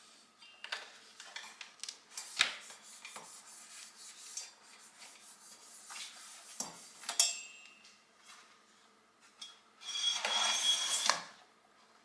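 Kitchen things being handled and set down on a counter: scattered knocks and clinks, with sharper clatters about two and a half seconds in and around seven seconds. A second-long rustling scrape comes near the end.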